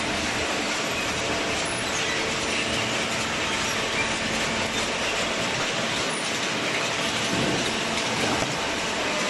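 Automatic hydraulic cardboard baler running: a steady, dense mechanical noise with a faint low hum.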